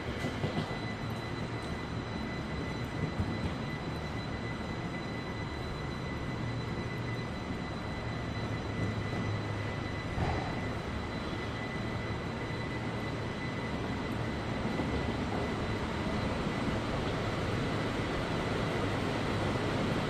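Steady mechanical hum and rushing background noise, with a faint constant high-pitched whine and a few faint knocks.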